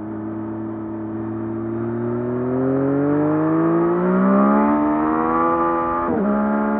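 Yamaha MT-09 SP's inline three-cylinder engine on its stock exhaust, running steadily and then accelerating, its note climbing in pitch and loudness. Near the end the pitch dips briefly and comes straight back.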